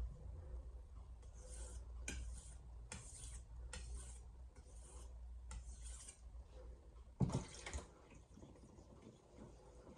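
A VG10 steel santoku blade scraping in light strokes across a Shapton Glass whetstone, roughly one stroke every half second to a second, while deburring the edge. A louder knock comes about seven seconds in, after which the strokes stop.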